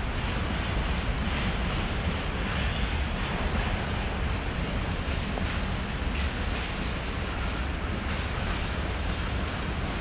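Open freight wagons of a goods train rolling past, a steady rumble of wheels on the track with a few faint clicks.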